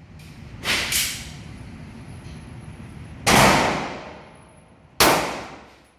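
9 mm Glock pistol shots, four of them: two in quick succession under a second in, one about three seconds in and one near the end, each followed by a long echoing decay.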